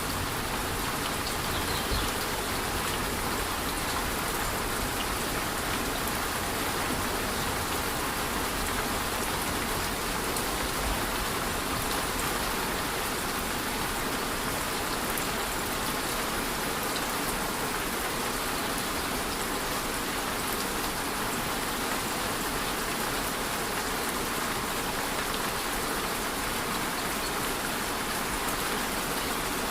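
Light rain and a rainforest waterfall: one steady, even hiss of falling water with no breaks.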